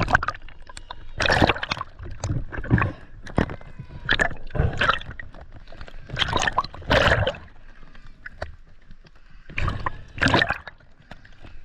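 Water splashing and gurgling in about eight irregular bursts, as if stirred by hands or a camera moving in shallow water.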